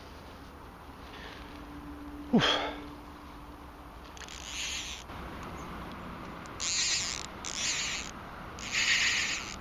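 Fly reel's click-pawl ratchet buzzing in four short spells of under a second each over the second half, as line is wound on or pulled off the reel. Earlier, about two seconds in, there is one loud zip that rises sharply in pitch.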